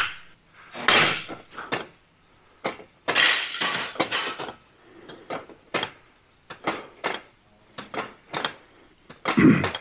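Metal gym equipment clanking: an irregular series of sharp metallic clinks and knocks, with a longer clatter about three seconds in.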